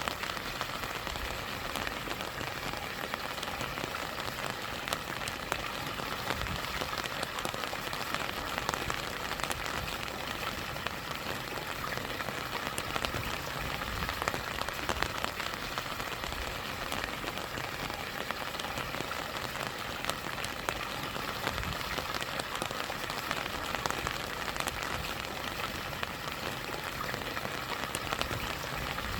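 Steady rain falling, with many separate drops ticking, over the continuous rush of stream water and a small waterfall.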